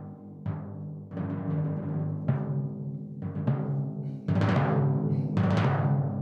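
Viennese timpani with goatskin heads played with felt mallets: a string of strokes across several drums, each ringing on as a clear pitched tone, growing louder about four seconds in.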